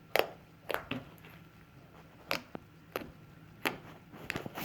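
Homemade slime being squeezed and played with by hand, giving about six short, irregular wet clicks and pops.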